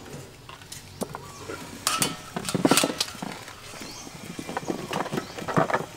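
Light knocks and clatter of vegetables being picked up and shifted on a metal tray, with a couple of short animal calls in the background.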